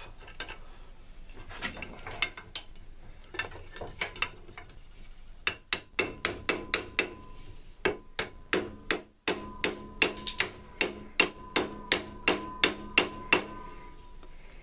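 Hammer blows on an old draw knife to knock its wooden handles off the tangs: a few light taps, then a quick run of sharp strikes, about two to three a second, the steel ringing between blows.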